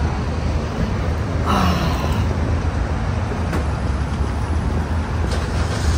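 Steady low hum of an idling engine, with traffic noise around it.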